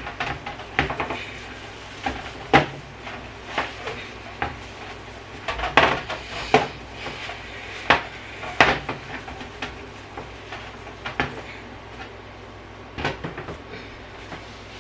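Kitchen clatter of a baking pan and utensils being handled on the counter: irregular sharp knocks and clinks, a dozen or so, growing sparser in the last few seconds.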